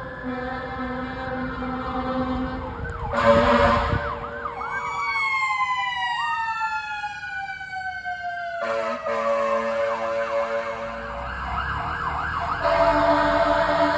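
Fire truck sirens wailing and yelping, with a loud horn blast about three seconds in and another steady horn blast at about nine seconds. In the middle a long siren tone slowly winds down in pitch.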